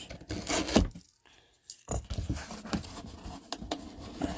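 Taped cardboard box being cut open and handled. There is a sharp scrape under a second in, a short pause, then steady rustling and scraping of cardboard with small knocks.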